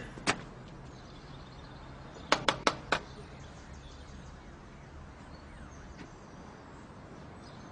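Four quick knocks on a front door, about two seconds in, over a faint steady outdoor background.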